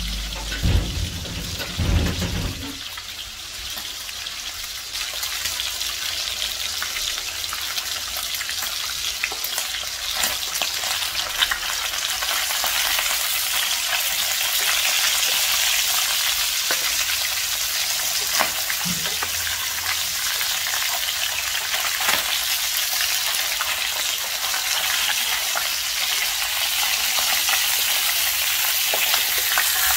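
Fish steaks sizzling as they shallow-fry in hot oil in a pan, a steady hiss that grows louder about twelve seconds in. A few taps and scrapes of a metal spatula moving the pieces, and some low knocks in the first couple of seconds.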